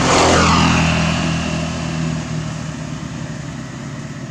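A motor vehicle's engine running, loudest at the start and fading away.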